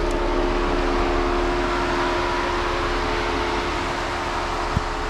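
Jeep engine and drivetrain running at a slow crawl over a rocky trail: a steady drone with a few held tones, and one sharp tap near the end.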